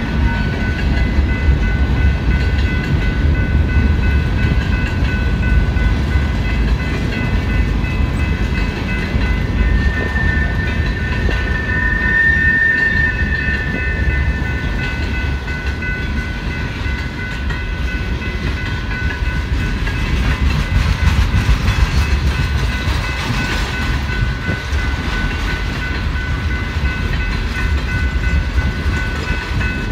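Freight cars of a long BNSF manifest train rolling steadily past a grade crossing: a continuous low rumble with wheels clicking over the rail joints. Steady high-pitched ringing tones run over it, with a brief brighter squeal about a third of the way in.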